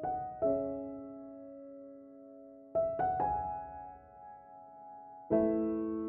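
Background music of slow, soft piano chords, each struck and left to ring out, with a new chord every second or two.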